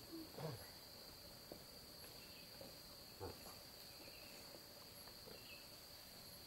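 Quiet, steady high-pitched drone of insects such as crickets, with two or three faint knocks.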